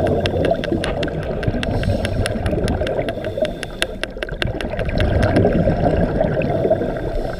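Underwater sound picked up through a camera housing: a steady low rushing of water with many sharp, scattered clicks, several a second.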